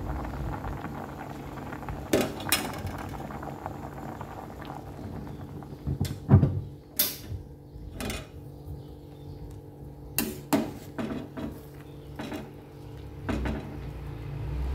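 Metal ladle clinking and scraping against a stainless steel cooking pot as a boiling vegetable soup is stirred, in irregular knocks over a steady bubbling of the boiling broth.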